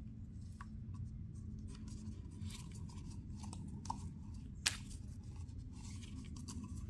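Light clicks and rubbing as the old oil filter housing is handled and its rubber O-rings are worked off, with one sharp click a little past the middle, over a low steady hum.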